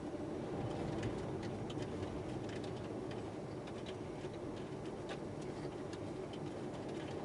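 Steady low rumble inside a car in strong wind and wet snow, dotted with light, irregular ticks about two or three a second.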